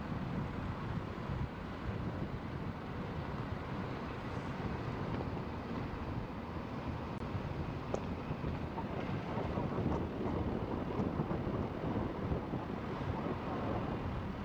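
Car driving along, with a steady rush of wind on the microphone over the tyre and road noise.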